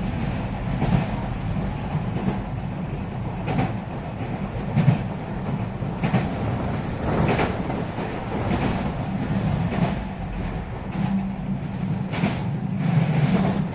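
Passenger train running at speed, heard from inside the carriage: a steady rumble of wheels on the rails with short knocks at uneven intervals.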